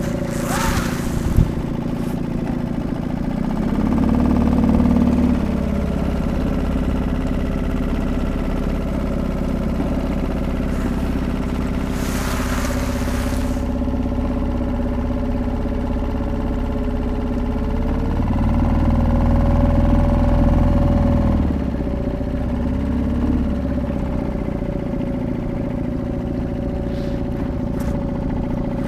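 Suzuki DF 2.5 four-stroke single-cylinder outboard motor running steadily, pushing an inflatable dinghy. It is opened up twice, about four seconds in and again near eighteen seconds, running louder and lower for a few seconds each time before easing back. Two short rushes of noise come through, one at the very start and one about twelve seconds in.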